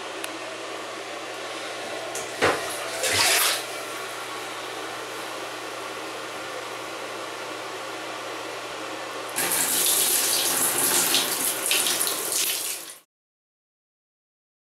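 Water splashing in a bathroom over a steady hiss of running water, with two short splashes about two and a half and three seconds in. From about nine and a half seconds, water poured from a plastic washbowl splashes loudly for about three and a half seconds, then the sound cuts off to silence.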